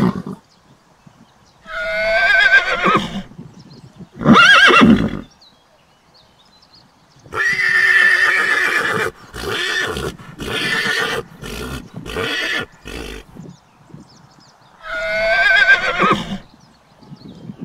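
A colt whinnying four times, each call high and wavering; the third is long and breaks up into a run of short stuttering pulses.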